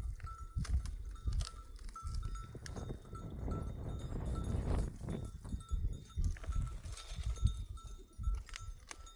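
Bells on a flock of goats and sheep clinking a few times a second, over irregular low thuds.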